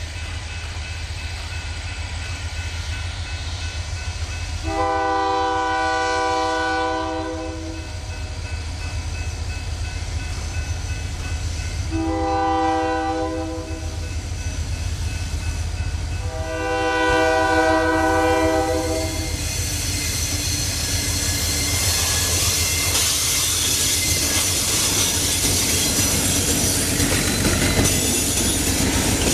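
Diesel locomotive's multi-chime air horn sounding three blasts, long, short, then long, over a steady low engine rumble. After that the noise of the passing train builds and stays loud.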